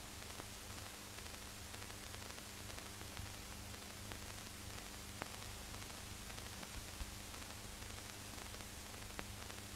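Faint steady hiss and crackle of an old film soundtrack, with a few scattered clicks and a low steady hum.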